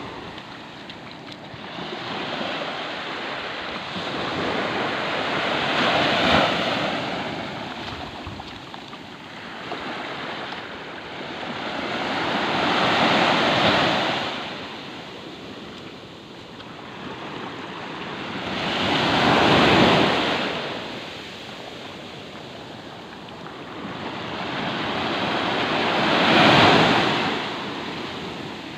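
Small ocean waves breaking and washing up the sand, the surf swelling and fading four times, about every seven seconds.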